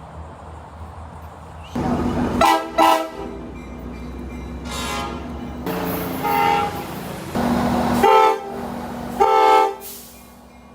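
Tri-Rail commuter train horn sounding about six blasts over the low rumble of the train. Two short blasts come close together near the start, then four more follow a second or so apart, each a multi-note chord.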